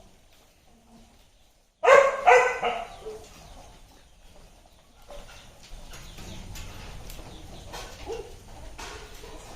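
An animal calls loudly twice in quick succession about two seconds in, followed by a quieter, busy mix of knocks, rustling and faint animal calls.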